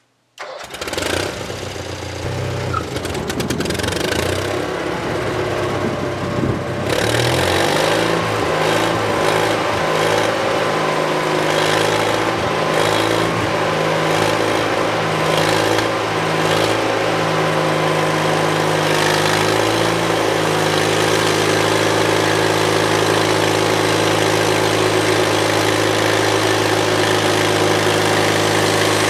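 Bandsaw mill's gasoline engine starting about half a second in and running unevenly, then speeding up about seven seconds in and running steadily at a higher speed.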